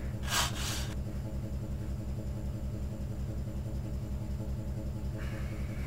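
A machine running with a steady, fast, even low pulsing, like a motor turning over. There is a short hiss about half a second in and a brief noisy burst near the end.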